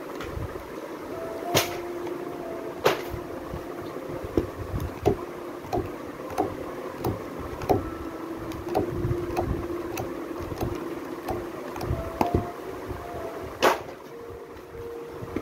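Children's books being handled and their pages flipped: a string of sharp taps and flaps, a few louder ones near the start and near the end, over a steady low rumbling background with a faint hum that comes and goes.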